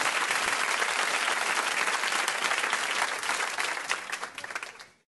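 Applause from many hands clapping, thinning out over the last second or so until it stops.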